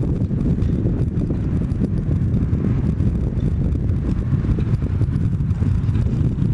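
Wind buffeting the microphone: a steady low rumble with no siren tone sounding.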